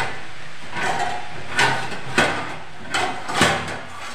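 Steel kitchenware clanking: about half a dozen sharp knocks and clatters, one with a brief metallic ring, as a steel plate is handled to cover the kadhai.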